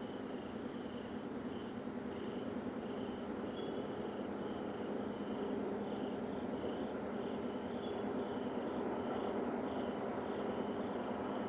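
A steady, loud droning rumble with several held low hum tones, from an unidentified source in the sky, growing slightly louder, that the recordist could also feel in their feet. Over it, crickets chirp in an even pulse about twice a second.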